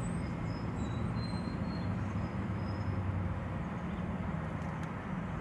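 Car rolling slowly, a steady low engine and road rumble heard from inside, with a few faint short high squeaks in the first few seconds.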